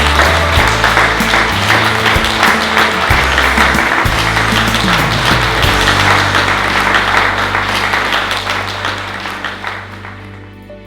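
Audience applauding over background music with a changing bass line; the applause and music fade out near the end.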